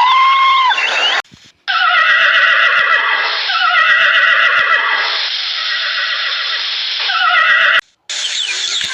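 Loud animal calls: repeated pitched cries, several sliding downward in pitch, in short segments with abrupt cuts about a second in and near the end.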